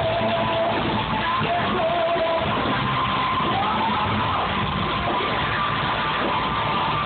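Rock band playing live in a hall: loud guitars and drums throughout, with long held high notes carried over the top.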